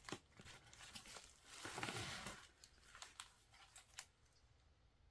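Faint handling of an album's paper packaging: rustling and crinkling, with a longer rustle about two seconds in and a few light clicks and taps.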